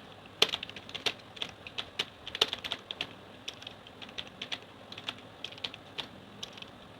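Computer keyboard keys clicking in a fast, uneven stream of keystrokes: touch-typing in a timed typing test at about 32 words a minute.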